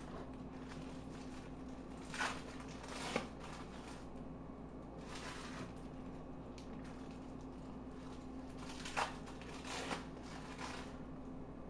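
A few short crinkling rustles as cheese and its plastic wrapping are handled, two a little after the start and two near the end, over a steady low hum.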